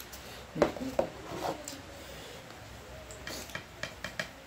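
Scattered small clicks and knocks of a plastic container and its lid and of steel dinner plates, with rubbing as hands mix food. A few sharp clicks come in the first second or so, and a quicker cluster of ticks comes near the end.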